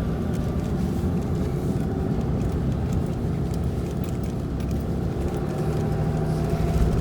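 A truck engine running steadily.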